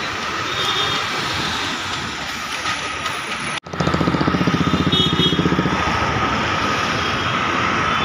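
City street traffic noise from passing vehicles. About three and a half seconds in the sound cuts abruptly, followed by a louder, close rumble that pulses rapidly for about two seconds before easing back to steady traffic noise.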